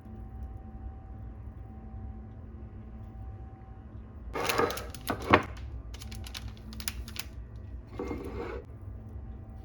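Objects being handled: a short scrape ending in a sharp knock about four seconds in, a few quick clicks, then another short scrape, over a steady low hum.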